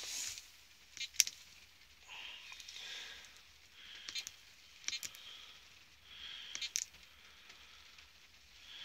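Quiet close-up breathing, a soft hiss about every two seconds, with a few sharp clicks of buttons pressed on a handheld key programmer.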